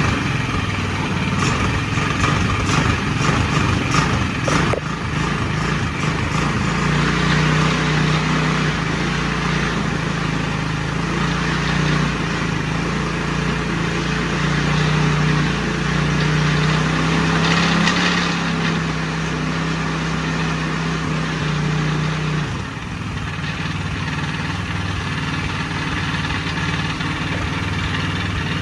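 GY6 single-cylinder four-stroke go-kart engine being cranked over, catching about six seconds in and then running steadily. About 22 seconds in it drops to a lower, slightly quieter idle. This is the engine running once its tight valve has been reset with a clearance gap.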